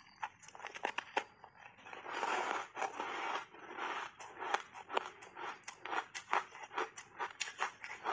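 A person biting and chewing a chunk of reshaped ice coated in matcha powder: a rapid run of sharp crunches and cracks, with a denser grinding crunch from about two to three and a half seconds in.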